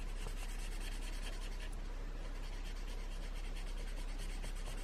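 Brush tip of an embossing marker rubbed back and forth across colouring-book paper, over a steady low hum.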